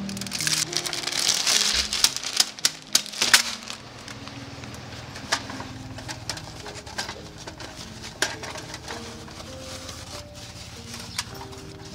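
Aluminium foil crinkling and crackling in the first few seconds, then scattered light clicks and knocks of a folding stainless-steel stove being handled in its zippered bag. Doves coo softly in the background.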